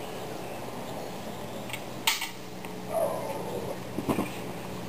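A few short clinks and knocks of a metal cooking pot and dishes being set down, the loudest just after four seconds, over steady outdoor background noise.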